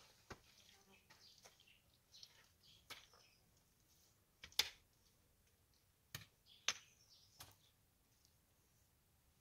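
Sparse, sharp clicks and knocks of stones and earth being handled, about six in all, the loudest about four and a half and six and a half seconds in. Faint bird chirps are heard between them.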